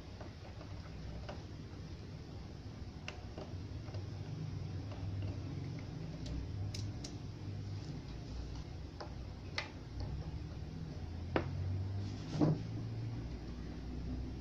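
Faint low hum from a powered-up power amplifier, with scattered light clicks and two louder pops about eleven and twelve seconds in as its knobs are turned and a test lead is touched to its input.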